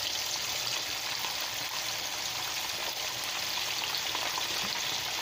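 Red snapper pieces frying in hot oil in a pan: a steady sizzle.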